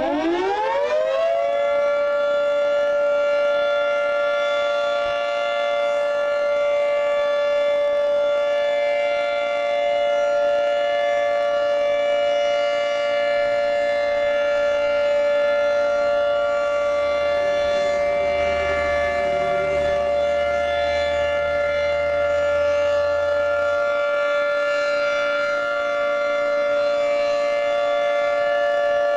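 Federal Signal 2T22 dual-tone outdoor warning siren being tested: it finishes winding up, its pitch rising over the first second or two, then holds a steady two-tone chord. A low rumble sits underneath for several seconds midway.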